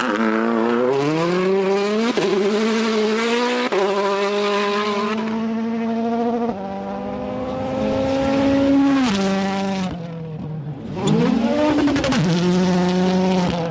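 Race car engine accelerating hard through the gears, its pitch climbing and then dropping at each shift. About ten seconds in it eases off, then revs up and settles again.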